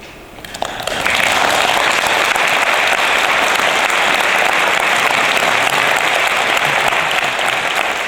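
Audience applause that starts about half a second in, swells within a second and holds steady, heavy clapping echoing in a church.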